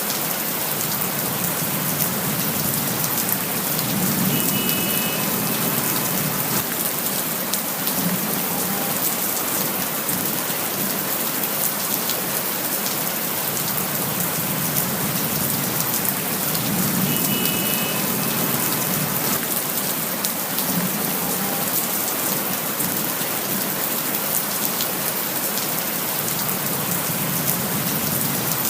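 Steady rain falling, a dense, even hiss of drops, with soft low rumbles swelling every few seconds.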